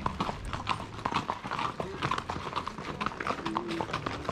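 Hooves of several horses walking on a paved street: an irregular, overlapping clip-clop of hoofbeats.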